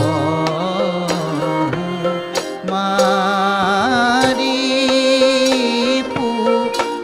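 Assamese devotional song (borgeet): a voice sings a slow, ornamented melody over held lower notes, with occasional drum strokes.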